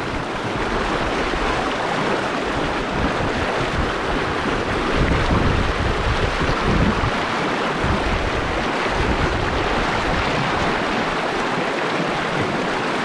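Fast-flowing mountain river rushing steadily over stones, with wind buffeting the microphone.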